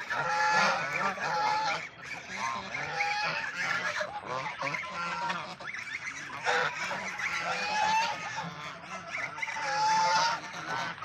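A flock of domestic geese honking, many calls overlapping one another in repeated bouts.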